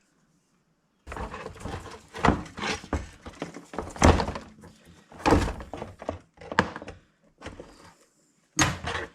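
Irregular clunks and knocks of hard parts being handled, turned over and set down, starting about a second in, with the loudest knocks around the middle.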